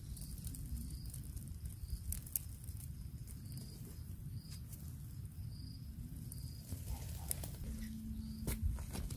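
Bare hands scraping and digging into dry, crumbly soil, with scattered scratches and bits of earth falling, busier near the end. A faint high chirp repeats in the background, roughly once a second.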